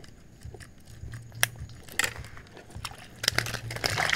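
Handling of a round wire-mesh catch basket: scattered sharp clicks and crackling rattles, with one loud click about a second and a half in, growing denser near the end.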